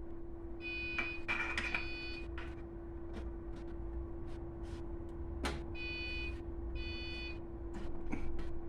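Hand-work clicks and knocks as a diesel heater fuel pump is pushed into its rubber mounting and its pipes are handled, with four short, high squeaks (two about a second in, two near six and seven seconds) over a steady low hum.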